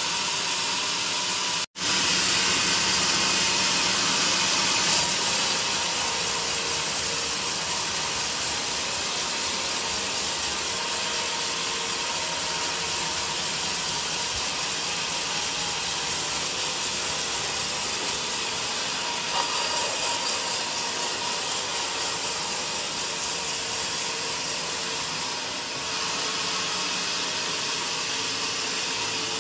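Portable band sawmill running, its blade cutting steadily lengthwise through a large joar log. The noise is steady, breaking off for an instant about two seconds in.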